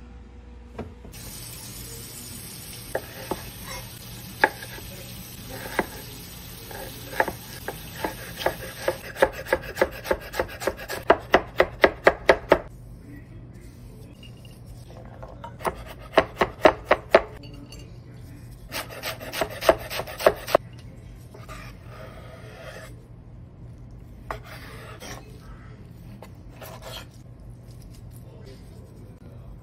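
Chef's knife chopping food on a bamboo cutting board in bursts of quick strikes. The strikes speed up to several a second before pausing, then come in two shorter bursts.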